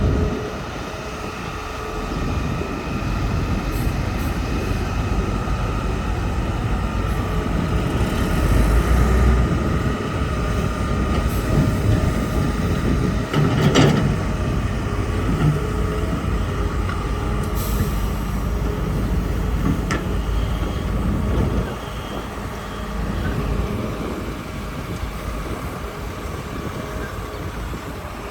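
Hitachi hydraulic excavator running steadily while working, a continuous low diesel rumble with a faint steady whine above it and a single sharp knock about halfway through.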